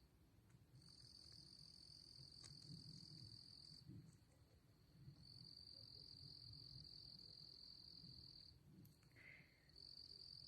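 Faint, steady high-pitched trilling of insects at dusk, in long unbroken stretches that pause briefly twice.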